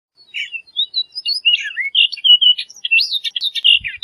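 Orchard oriole singing: a fast, jumbled run of varied whistled notes, quick slurs and chattering notes that starts just after a silence and carries on without a break.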